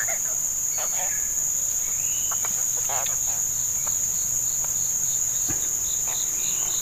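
Steady, high-pitched chorus of insects from the riverside vegetation, with an evenly pulsing call of about three beats a second joining about three seconds in, and a few faint chirps.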